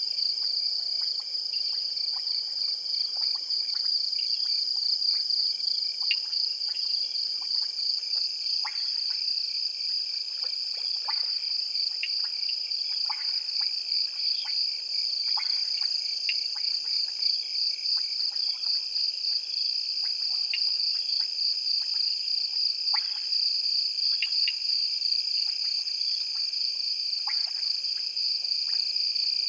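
Night chorus at a waterhole: a steady, high, fast-pulsing insect trill, with many short frog calls scattered through it, several a second.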